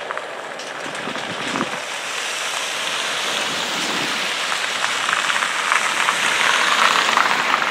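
Car tyres hissing on a wet, puddled road as cars drive off in turn, growing louder as one passes close near the end.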